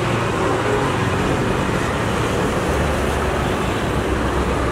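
Steady road traffic noise, with a deeper rumble from about three seconds in.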